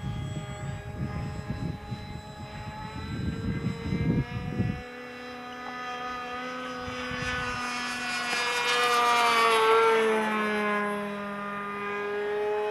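Electric motor and propeller of an RC model Zivko Edge 540 whining steadily as it flies in on its landing approach. The sound swells to its loudest about ten seconds in, with the pitch dropping as the plane passes. Wind buffets the microphone for the first five seconds.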